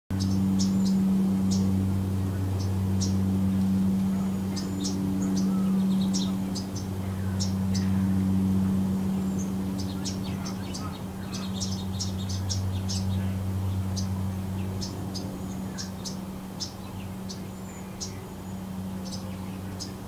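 Small birds chirping in short, high calls throughout, over a steady low machine hum that is the loudest sound and eases off a little in the second half.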